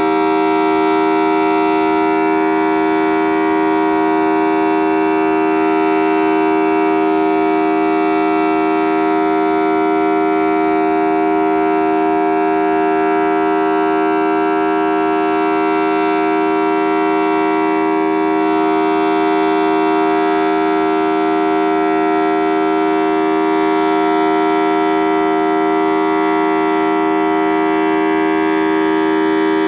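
Federal Signal Thunderbolt 1000T supercharged rotating warning siren, its 4- and 5-port rotor sounding a two-tone chord, held at a steady pitch at full speed during a test.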